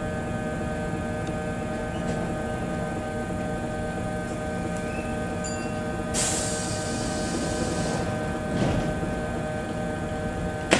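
Kintetsu 2610-series electric train standing at the platform with its equipment humming steadily. About six seconds in, a sudden sharp hiss of compressed air that fades over about two seconds, followed by a dull thud.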